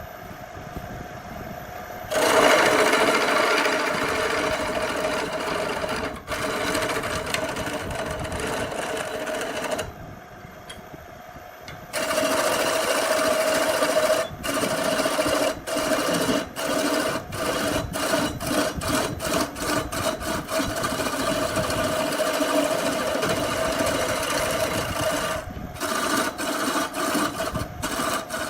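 Electric power tool running with a steady whine, starting about two seconds in and stopping briefly near ten seconds. It then cuts out and back on roughly twice a second, as if the trigger is being pulsed.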